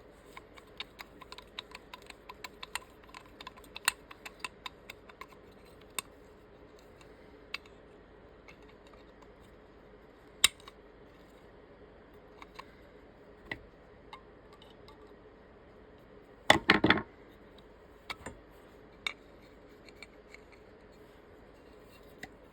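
Scattered small clicks and taps of a winch switch and its mounting hardware being handled and worked onto a handlebar, with a brief louder clatter about two-thirds of the way through.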